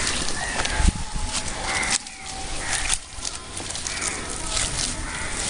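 Short high animal calls, a second or so apart, over a steady outdoor hiss and low rumble.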